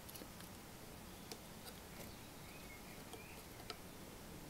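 Quiet hand soldering on a circuit board: a few faint, sharp small clicks and ticks from the iron tip and solder wire against the component legs over a low room hiss. A few faint short high chirps come about halfway through.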